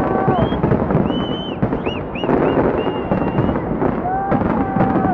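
Fireworks bursting continuously, with many shells going off at once in a dense run of booms and crackling. Short, high whistling tones rise and fall over it now and then.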